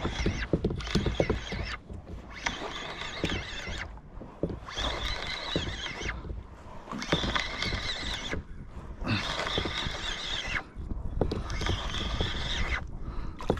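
Spinning reel being cranked in about seven spurts of one to two seconds each, a whirring gear whine with short pauses between, as line is wound in on a hooked fish.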